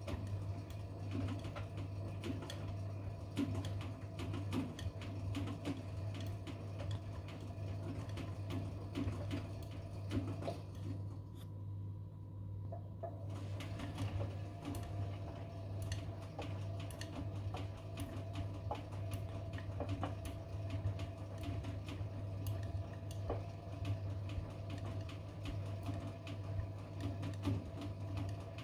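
Hotpoint front-loading washing machine tumbling a sudsy load in the main wash of a 40 °C anti-stain programme. A steady motor hum runs under the wet sloshing and flopping of the clothes. About eleven seconds in the drum pauses for roughly two seconds, then turns again.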